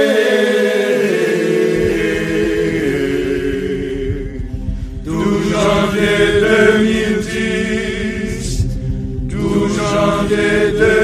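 Vocal music with long, held chanted notes sung in phrases, thinning briefly about four and again about eight and a half seconds in.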